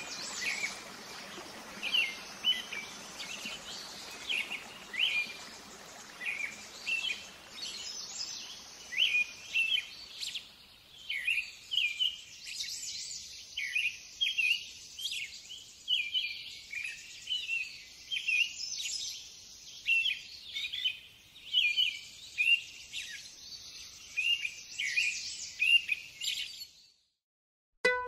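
Small birds chirping and calling over and over, short slurred notes about once or twice a second, over a steady high hiss of insects. The sound cuts off abruptly shortly before the end.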